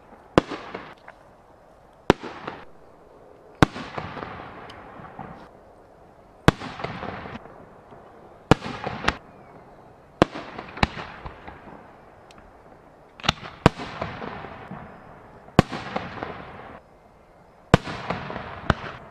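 Aerial fireworks shells bursting, about a dozen sharp bangs a second or two apart, each followed by a fading rumble.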